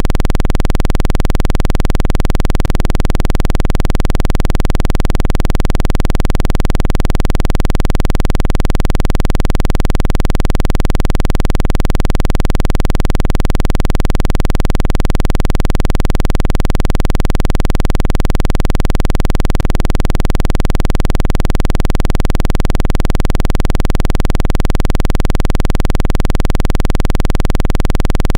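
Loud, steady electronic low-frequency tone with a rapid buzzing pulse: a synthesized water-eject sound meant to vibrate a phone speaker's diaphragm and push out trapped water.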